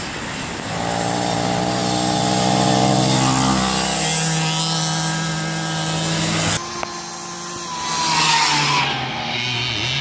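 Small 50cc two-stroke mini bike engine running hard at high revs, its note dropping about four seconds in. The sound breaks off abruptly two-thirds of the way through, and a small engine is then heard revving up near the end.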